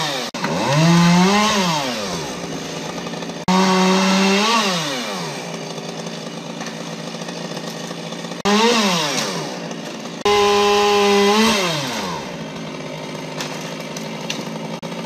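Two-stroke chainsaw revved to full throttle four times, holding high revs briefly and then winding down in pitch each time, as limbs are cut. Between the bursts it runs at a lower steady speed.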